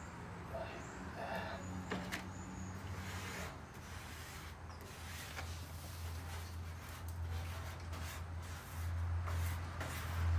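Hands rubbing and pressing a glued paper cut-out flat onto a vinyl-wrapped car fender, with light rustling and a few small clicks. A low hum runs underneath and grows louder near the end.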